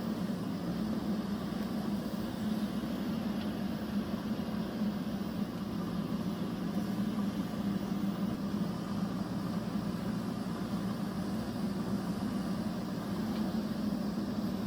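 A steady machine hum with one even pitch and no change in speed throughout.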